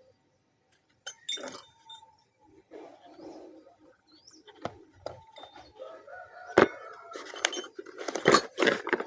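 Metal pieces of a hole saw set clinking and knocking as they are handled: a few separate knocks at first, one sharp one past the middle, then a busier run of clinks near the end. Birds or chickens call faintly in the background.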